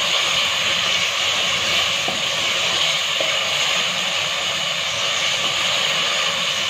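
Onion-and-spice masala frying in oil in a pot, a steady sizzle, while a wooden spoon stirs it; the masala is fried down to where the oil separates.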